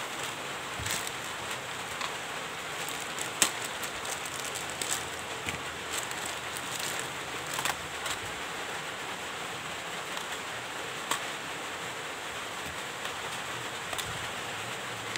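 Packaging being handled by hand: scattered crinkles, taps and clicks from plastic parts bags and a small cardboard box, with one sharper tap about a third of the way in, over a steady hiss.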